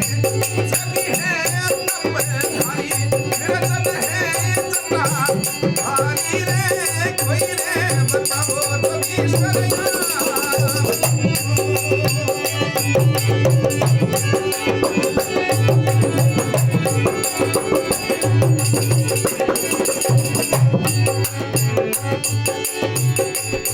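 Rajasthani devotional bhajan music with a steady rattling percussion rhythm and a pulsing low accompaniment.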